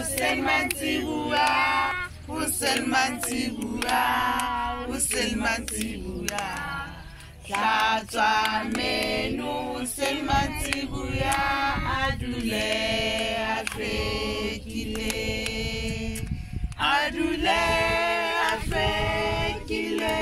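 A group of young children singing a song together, with hand claps along the way.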